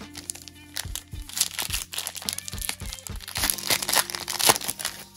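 Crinkly foil wrapper of a Panini Illusions basketball card pack being handled and torn open, a run of quick irregular crackles that gets louder and busier about three seconds in.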